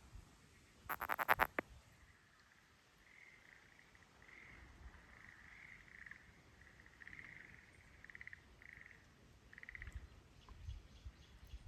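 Frogs calling in a wetland: one loud call of rapid pulses about a second in, then a fainter run of short pulsed trills repeating for most of the rest.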